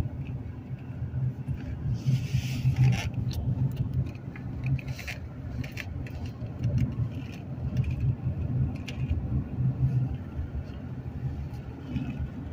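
Road and engine noise inside a moving car's cabin: a steady low rumble, with scattered light clicks and a brief hiss about two seconds in.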